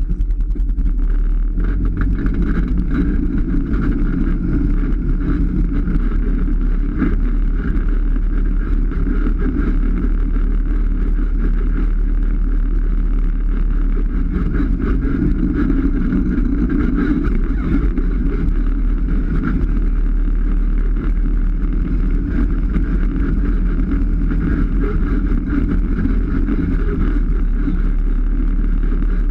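Polaris RZR 570 side-by-side's single-cylinder engine running steadily as the machine drives along a dirt trail, with an even drone and no revving changes.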